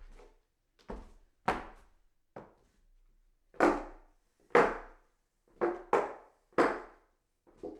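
Footsteps climbing hollow wooden stairs: a wooden knock about every second, some landing as a quick double knock, each with a short hollow ring.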